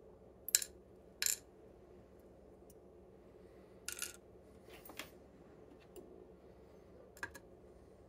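A handful of light, sharp metal clinks and clicks spread over several seconds, the first two close together near the start. These come from small lock cylinder parts and steel tweezers being handled and set down.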